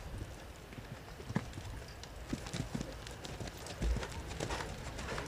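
Horse cantering on a sand arena, its hooves thudding in an uneven rhythm, with the heaviest thud about four seconds in.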